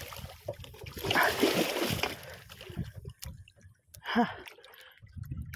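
Water splashing at the surface beside a small wooden outrigger boat as a hooked king mackerel thrashes while being hauled up to the side on a handline. The splashes come in bursts, heaviest in the first two seconds, with another short burst about four seconds in.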